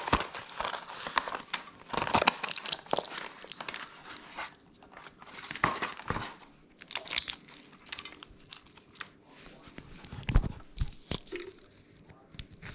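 Crinkling and rustling of a garbage disposal power cord kit's packaging as it is opened, with irregular clicks from small parts being handled.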